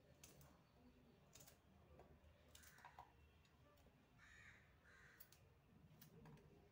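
Near silence: faint clicks of a knife cutting a cucumber held in the hand, with a few faint short calls in the background.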